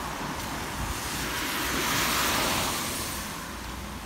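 A car passing on a wet road: the hiss of tyres on the rain-soaked asphalt swells to a peak about two seconds in, then fades away.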